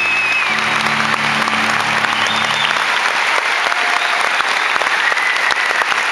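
Audience applauding, with music playing under it that stops about three seconds in.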